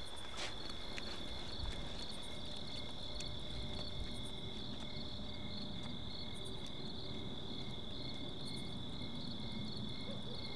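Crickets trilling steadily: a continuous high tone with a fainter, lower one beneath it, pulsing slightly and evenly.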